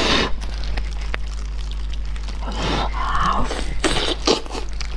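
Close-miked eating sounds: a short breath of blowing on hot braised meat at the start, then wet, sticky biting and chewing of the meat on the bone, with small smacking clicks from about four seconds in. A steady low electrical hum lies underneath.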